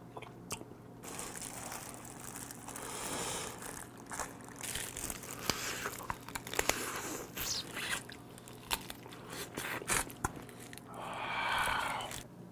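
Eating raw soy-marinated swimming crab up close: shell crunching and cracking between the teeth in many short sharp bursts, with plastic gloves crinkling as the crab is handled.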